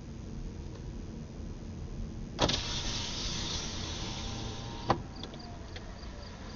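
A car's power window winding down for about two and a half seconds, starting suddenly and stopping with a click. The car's low road rumble runs underneath.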